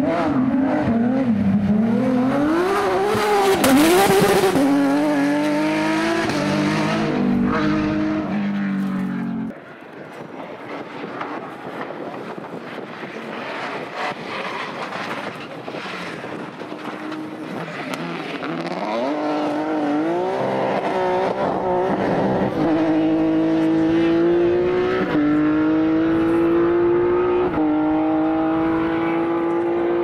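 Rally cars at speed through corners, their engines rising and falling with the throttle and gear changes, with a loud hiss a few seconds in. The sound drops sharply at about ten seconds, then another car's engine climbs through several upshifts.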